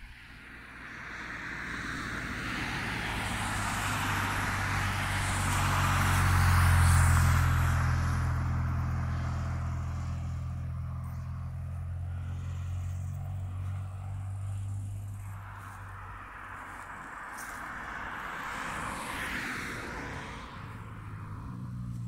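A motor vehicle driving past on the road, its engine note and tyre noise growing to a peak about seven seconds in and then fading. A second vehicle passes, more faintly, near the end.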